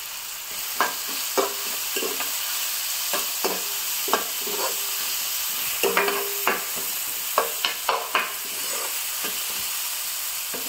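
Chopped onion, tomato and curry leaves sizzling steadily in hot ghee in a frying pan, while a spatula stirs them, scraping and knocking against the pan about fifteen times.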